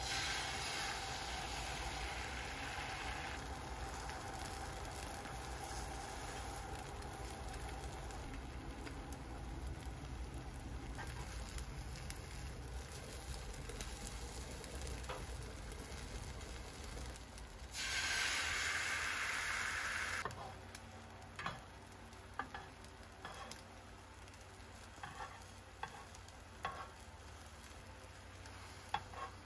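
Food sizzling in a frying pan while it is stirred, as a steady hiss. About eighteen seconds in, a louder rushing hiss lasts two seconds or so. After that the sizzle is quieter, with scattered light clicks of a utensil.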